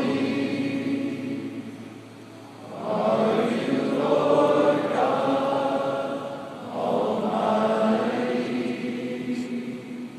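A large group of men singing a slow worship chorus together, holding long notes in three swelling phrases.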